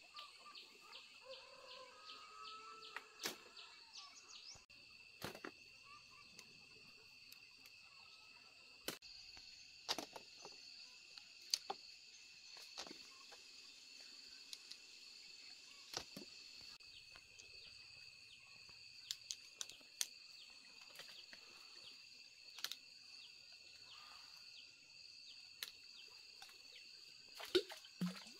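A steady, high-pitched insect chorus, with scattered sharp clicks and snaps from fig-tree branches and figs being handled and plucked; the loudest snaps come near the end.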